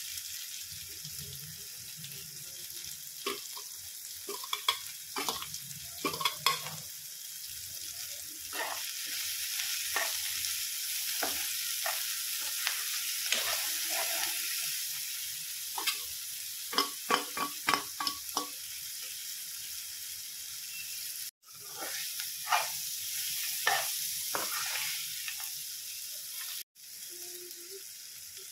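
Chopped onions, tomatoes and green chillies sizzling in oil in a pan. A metal spoon stirs them, scraping and clinking against the pan in clusters of quick strokes. The sizzle breaks off abruptly twice.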